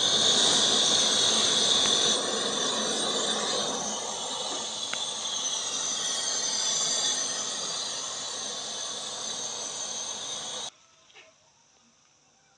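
Chicken sizzling in hot oil in a cooking pot: a loud, steady hissing sizzle with crackle that stops abruptly about ten seconds in.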